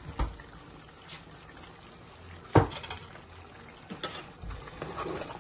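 A metal spoon knocking against a stainless steel pot of chicken bhuna a few times, the loudest knock about two and a half seconds in, over a faint steady hiss from the simmering pot.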